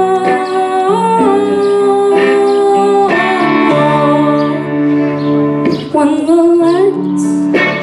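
A boy singing into a microphone while playing electric guitar, holding long notes that bend in pitch over sustained guitar chords.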